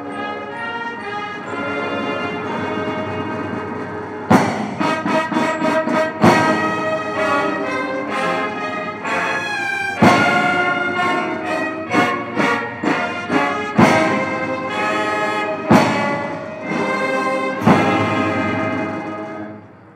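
Military brass band playing slow held chords; from about four seconds in, loud percussion strikes punctuate the music at irregular intervals, and the music ends just before the close.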